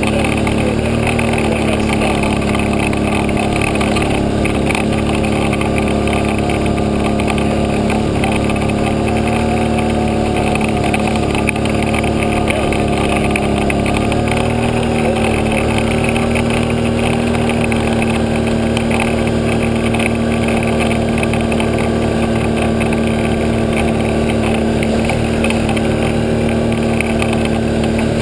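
ATV engine running steadily at cruising speed on a dirt trail, its pitch holding even and rising slightly about halfway through.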